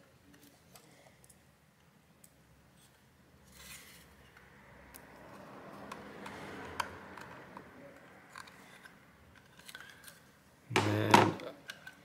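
Small screws being turned into a 2.5-inch SSD's thin metal caddy with a hand screwdriver: faint clicks and a soft scraping of metal on metal. Near the end comes a brief, louder thump and scrape as the drive is handled into the laptop's drive bay.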